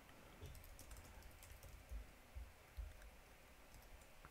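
Faint typing on a computer keyboard: a scattered run of soft key clicks, with a few slightly heavier knocks about halfway through.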